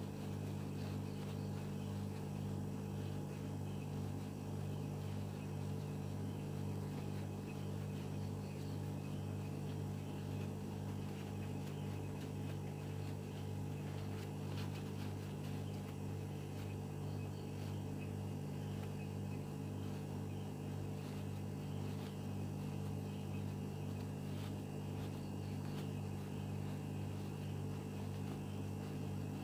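A steady low hum with a few pitches stacked together, running evenly without change.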